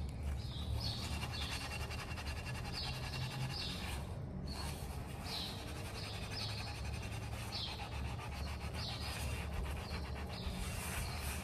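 A kitchen sponge scrubbing the inside of a pot with cream cleaner, lifting burnt-on stains: a steady rubbing, with short high chirps every second or so.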